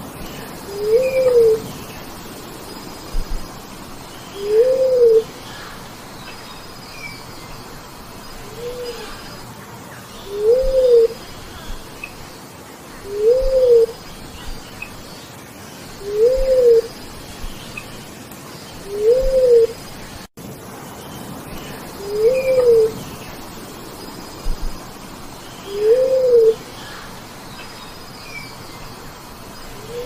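Bleeding-heart dove giving single low, hooting coos, each rising and then falling in pitch, repeated about every three seconds. Faint higher chirps sound in the background.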